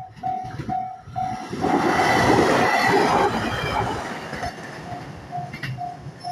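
Japanese railway level-crossing warning bell clanging about twice a second. About a second and a half in, a train passes loudly and drowns the bell for a couple of seconds, then the bell comes back quieter as the train goes by.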